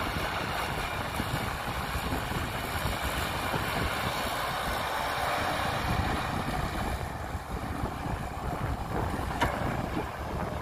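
Heavy diesel engine of construction machinery running steadily.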